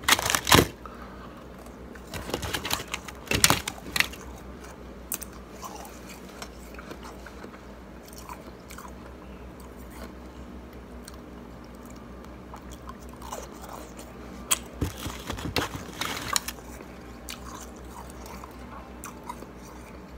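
Shaved ice cubes being bitten and chewed: a soft crunch of compacted shaved ice, in separate runs. There is a loud crunch right at the start, a cluster of bites a couple of seconds in, and another run about three-quarters of the way through, with quieter chewing between.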